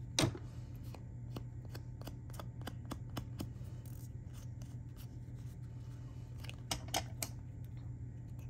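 Hands working with paper pieces and glue: scattered small clicks and light paper handling, with a slightly louder group of clicks near the end, over a steady low hum.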